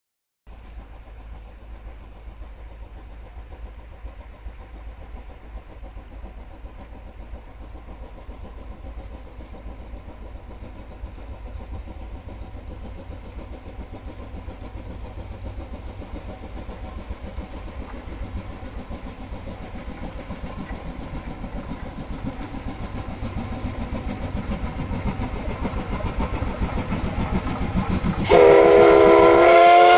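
A C11 tank steam locomotive hauling a passenger train, its running sound a low rhythmic beat that grows steadily louder as it approaches. Near the end it sounds its steam whistle loudly, several tones at once.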